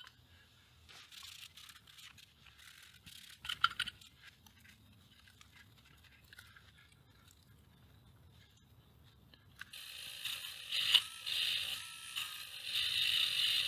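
Faint scraping and rustling as corrosion is rubbed off a tape recorder's metal deck plate with a paper tissue and a plastic pick. About ten seconds in, a handheld rotary tool starts grinding against the metal chassis with a steady, harsh hiss.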